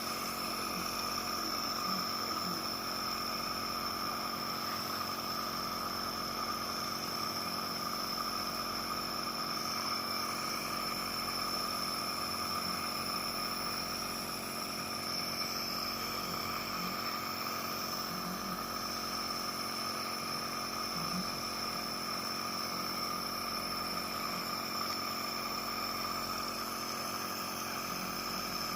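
Nebulizer air compressor running steadily, a constant mechanical hum with a hiss of air, while it nebulizes medicine for a cough and cold.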